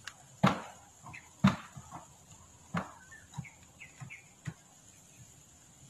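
White decorative pebbles clicking against one another as they are set in place by hand: a handful of sharp knocks spaced roughly a second apart, the two loudest near the start, then weaker ones.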